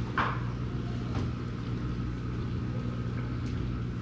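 A steady low hum, with a short knock of a knife against a wooden cutting board just after the start as cooked steak is sliced.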